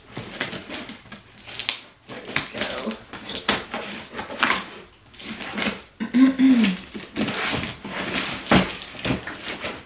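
Scissors cutting along packing tape on a cardboard box, a string of short scratchy strokes with the tape crackling and the cardboard scraping, then the box flaps being pulled apart.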